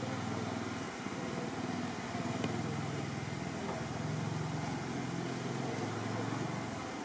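Low steady motor hum, shifting a little in pitch around the middle, over a constant background hiss.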